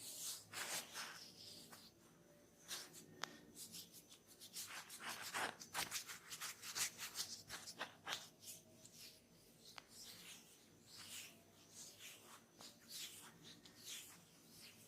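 Hands rubbing and brushing over skin and hair close to the microphone during a head and ear massage: faint, irregular strokes that come thicker and louder through the middle.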